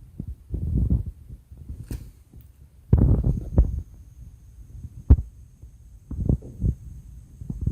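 Dull knocks, bumps and rubbing of a laptop and its parts being handled on a work surface, with one sharp click about five seconds in and a faint high whine from about three seconds on.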